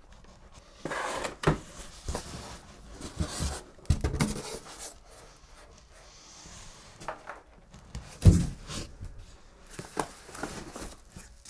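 Packing being handled in a cardboard box: a polystyrene foam insert lifted out and the box contents rustled, giving scattered knocks and scrapes with a louder thump about eight seconds in.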